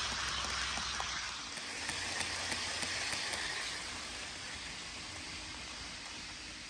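HO scale Amtrak Talgo model train rolling along sectional track: a steady hiss from the wheels with a few faint clicks in the first half, fading as the train moves away.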